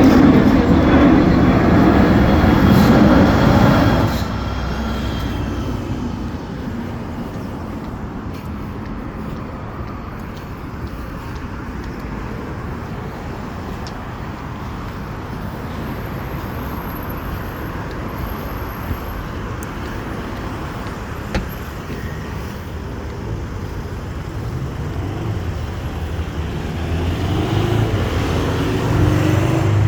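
Road vehicle noise: one vehicle loud at the start, dropping away after about four seconds into a steady traffic hum, and another rising in with a changing engine pitch near the end.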